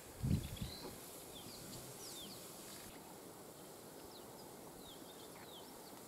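Wild birds calling faintly in bush, a scatter of short, high chirps that drop in pitch, over a steady outdoor hiss. A brief low thump or rumble, the loudest sound here, comes about a quarter-second in.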